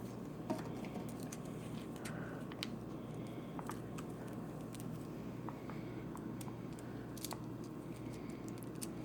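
Faint, scattered small clicks and light rustling as a small plastic Kinder Joy toy and its wrapping are handled, over a low steady room hum.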